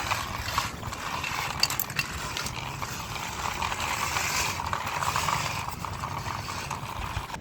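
Two plastic toy vehicles being run along together, their wheels and parts rattling and clicking steadily.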